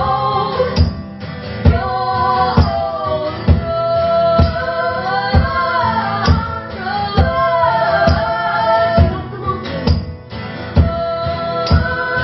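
Live band music: several voices singing long held notes together in harmony over a steady drum beat, about one beat a second.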